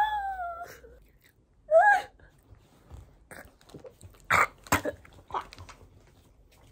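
A woman's strained, whimpering groan, rising and falling in pitch, as she reacts to a sour, spicy Takis chip, with a short vocal sound about two seconds in. About four and a half seconds in come two sharp coughing gasps: she has choked on the chip's sour powder.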